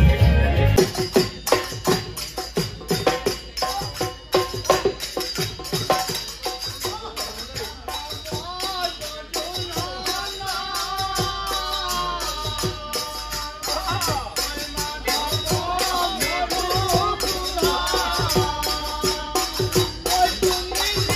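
Assamese Bihu/Husori folk music: a fast, dense clinking of small brass hand cymbals (taal) over dhol drum strokes, with men's voices singing from about eight seconds in. It opens with under a second of louder, drum-heavy dance music that cuts off abruptly.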